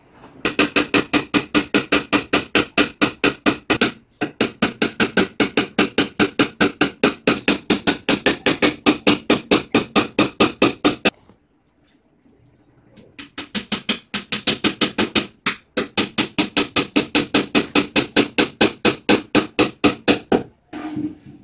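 Hammer driving No. 2 finishing nails into a plywood bed frame: quick, even taps, about five a second, in long runs, with a pause of about two seconds near the middle.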